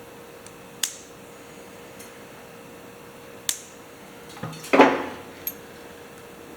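Side cutters snipping the excess tails off a new cotter pin in the carburetor throttle linkage. There are a few sharp metallic clicks, and the loudest is a short metal clatter about five seconds in.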